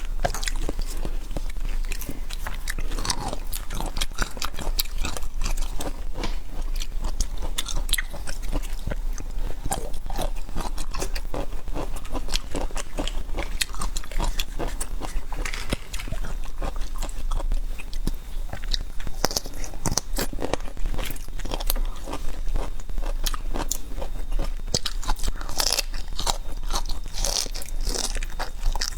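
Close-miked biting and chewing of food, with frequent small crunches and crackles coming thick and fast.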